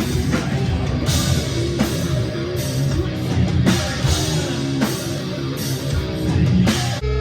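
Live band playing loud, distorted heavy rock: electric guitars over a drum kit with regular cymbal and drum hits. About seven seconds in it cuts abruptly to steady held tones.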